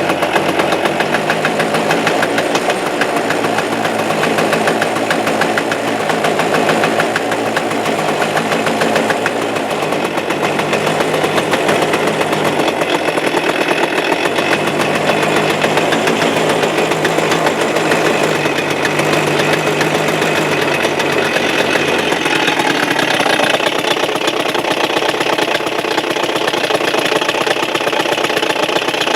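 Suzuki Address 110 two-stroke scooter engine running steadily with a rattling knock in the motor. The rattle is still there with the variator roller weights taken out, which tells the mechanic the fault is inside the engine and the motor must be opened.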